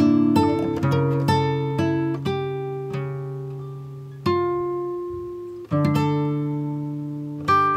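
Background music of plucked string notes that ring and fade, struck quickly for the first few seconds, then thinning to a few slow notes with new ones struck about four seconds in, near six seconds, and near the end.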